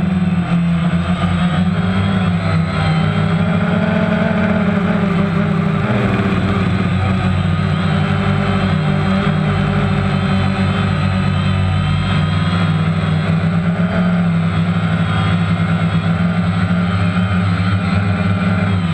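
Small drone's electric motors and propellers running in flight, heard from the camera on board: a loud, steady buzzing whine whose pitch wavers slightly as the throttle changes, with a brief dip about six seconds in.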